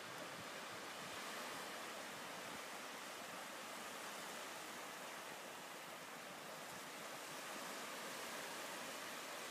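Steady rushing noise of sea surf, with no separate wave crashes standing out.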